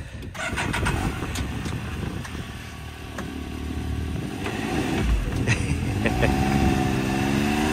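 2022 Can-Am Maverick X3's turbocharged three-cylinder engine running, then revving up from about six seconds in as the jacked-up steel saw-blade wheels spin freely. There are a few knocks before that.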